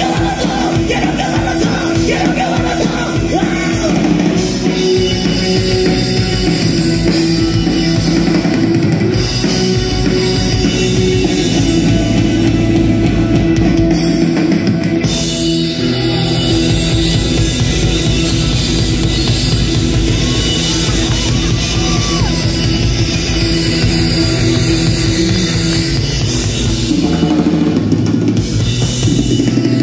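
Live rock band playing loud, with a drum kit and electric guitars.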